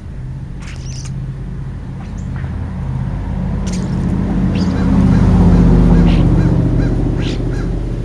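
A passing vehicle on the street: a low engine-and-tyre rumble that builds to its loudest about five to six seconds in, then fades. Several short bird calls sound over it.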